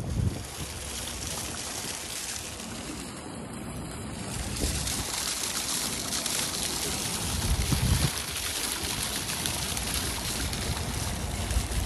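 Water splashing steadily from a fountain jet bubbling up at the surface of a pond, a continuous rushing hiss that grows a little louder about halfway through. Wind buffets the microphone now and then.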